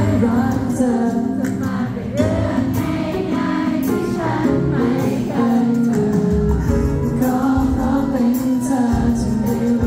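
Thai pop song performed live through a concert sound system: band accompaniment with singing.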